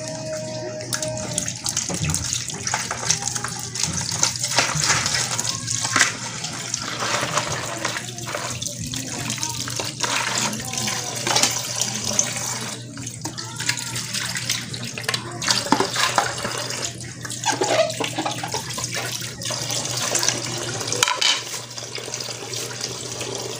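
Water splashing and running while freshly boiled freshwater crabs are washed and cleaned by hand, with frequent small splashes and clicks of shell handling.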